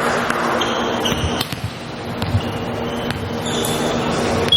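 Indoor volleyball match: hall ambience with crowd noise, several short high-pitched squeaks and a few sharp knocks of ball hits on the court.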